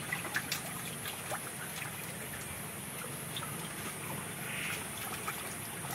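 Steady hiss of running water at a fish pond, with a few faint sharp clicks in the first second.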